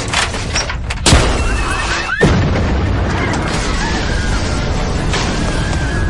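Film crash-and-boom sound effects: two heavy impacts about a second apart, each followed by a falling sweep, then a steady loud rumble of destruction.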